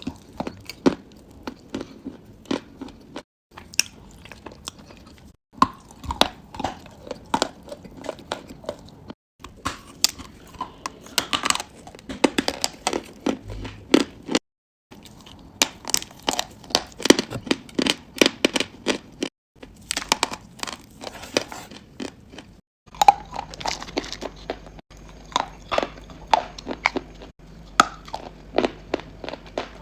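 Close-miked biting and chewing of edible chalk and clay: sharp crunches several times a second in short clips, broken by brief silent cuts. A faint steady low hum sits under the last few seconds.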